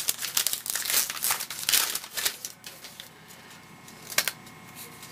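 A baseball card pack's wrapper crinkling and tearing as it is opened and handled, loudest about two seconds in, then quieter with a single sharp tick near the end.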